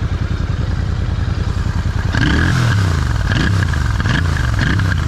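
Royal Enfield Super Meteor 650's parallel-twin engine idling with its exhaust baffle removed, then blipped through several quick revs from about two seconds in. The open exhaust gives it its loud, raw note.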